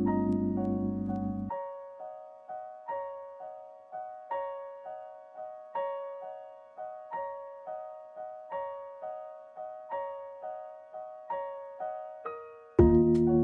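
Instrumental piano music: a slow, gentle figure of single struck notes, each ringing and fading, repeating at an even pace. A low sustained accompaniment drops out about a second and a half in and comes back, louder, near the end.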